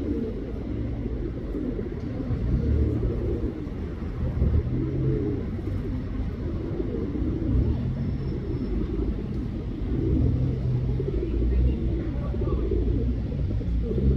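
Male pigeon cooing over and over in low, wavering phrases, over a steady low rumble.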